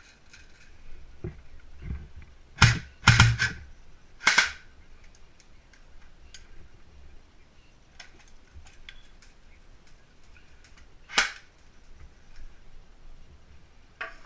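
Airsoft M4 rifle firing sharp single shots: a handful in quick succession a few seconds in, then one more about seven seconds later.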